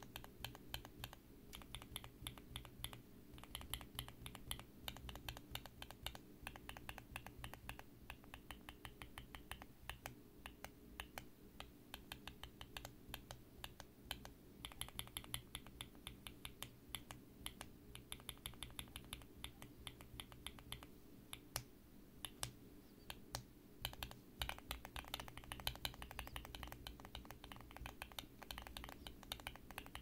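Gateron Pro Glory Red linear mechanical keyboard switches (pre-lubed, nylon housings) under white PBT keycaps, pressed over and over by a finger, giving a rapid, continuous run of quiet key clacks.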